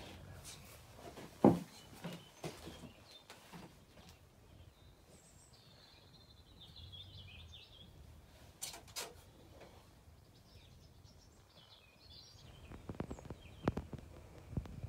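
Scattered knocks and clatters of a small terracotta pot and potting soil being handled on a bench, the loudest about a second and a half in and a cluster near the end. Faint bird chirps in the middle.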